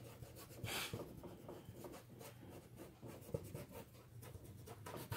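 Paintbrush stroking over a canvas: faint, repeated scratchy brushing, with one louder stroke about a second in.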